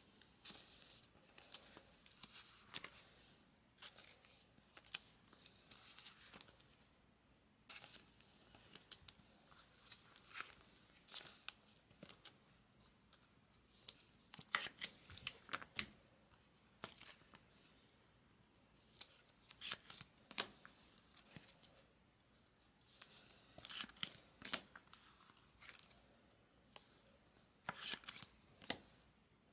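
Faint handling of trading card packs: stiff chrome baseball cards clicking and sliding against each other, with the crinkle of pack wrappers, in short scattered bursts.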